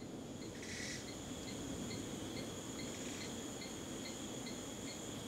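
Insects chirping steadily: a high, even whine with small regular ticks about four a second, over a low rushing noise.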